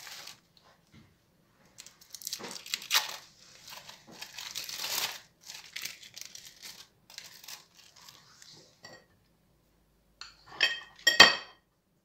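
Thin plastic film crinkling and rustling as cheese slices are handled and peeled from their packaging, then a few sharp clinks on a ceramic plate near the end.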